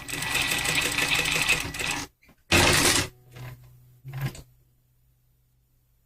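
Sunstar KM 235-AS computerised industrial sewing machine stitching fast for about two seconds, then stopping. About half a second later comes a short, loud burst, followed by a couple of small clicks and a low motor hum that dies away.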